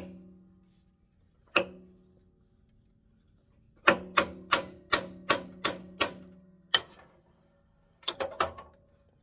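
Hammer tapping a spur drive center to drive it into a walnut blank on a wood lathe: a single tap, another a second and a half later, then a quick run of about seven taps at roughly three a second, one more, and a tight cluster of three or four near the end. Each tap leaves a short metallic ring.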